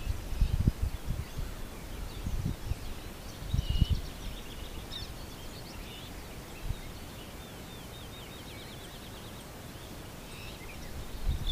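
Several songbirds singing and chirping, with a fast trill repeated over and over about two-thirds of the way through. Low irregular rumbles come and go under them in the first four seconds.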